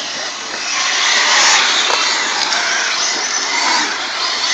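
Pack of 1/8-scale off-road RC buggies racing on a dirt track, a dense high buzz of their motors and tyres on the dirt, growing louder about a second in as the cars come closer.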